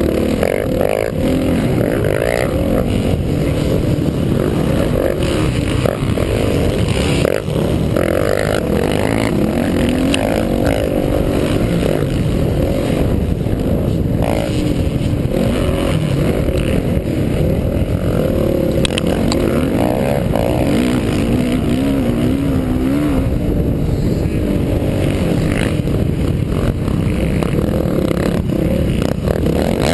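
Dirt bike engine running hard at race pace, its pitch rising and falling as the rider accelerates, shifts and backs off through the turns, heard up close from a camera mounted on the bike.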